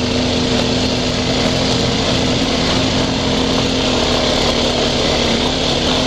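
ATV engine running at a steady pace along a rough dirt trail, its note holding level throughout, over a constant rushing of wind and trail noise.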